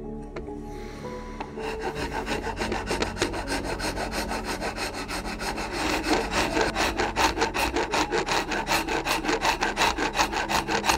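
Hand file rasping across a wooden gunstock in quick, regular back-and-forth strokes, about four a second, starting about a second and a half in and growing stronger about halfway through. The file is shaping and feathering the edges of the stock's comb.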